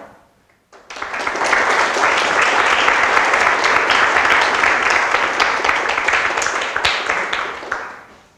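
Audience applauding, many hands clapping together. It starts about a second in, holds steady, then dies away near the end.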